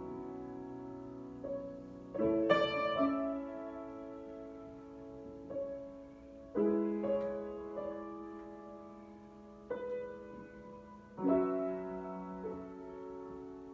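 Solo piano improvisation: slow chords struck every few seconds, each left to ring and fade before the next.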